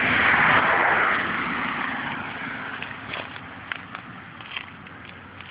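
Yamaha FZR1000's inline-four engine running as it warms up from a cold start, heard as a coarse hiss through a poor microphone; it is loudest about a second in and then fades. Faint crunching steps on gravel come in over the second half.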